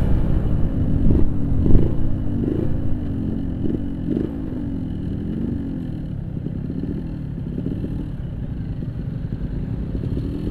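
Yamaha RX King 135cc single-cylinder two-stroke with a Boban aftermarket exhaust, ridden with the throttle worked on and off. The engine note rises and falls several times over the first few seconds, then settles to steadier running at a lower level.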